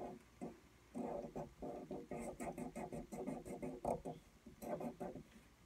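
Felt-tip marker scribbling on sketchbook paper, rapid back-and-forth colouring strokes at about four a second, with two short pauses.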